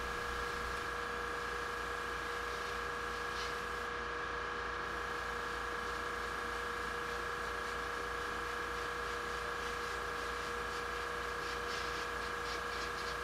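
Hobby airbrush spray booth's exhaust fan running: a steady hum with a couple of held tones over a soft rush of air.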